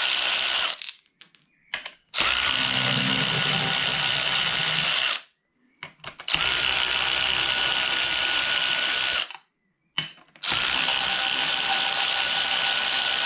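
Electric drill spinning in runs of about three seconds each, with short pauses between, a steady whine that rises briefly as each run starts: undoing the bolts of a gearbox's top cover.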